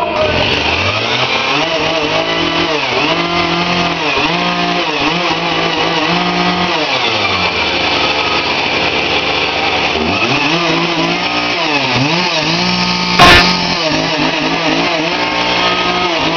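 Two-stroke chainsaw engine running after a carburetor cleaning, revved up and down over and over, with a couple of seconds of idle in the middle. A sharp knock about 13 seconds in.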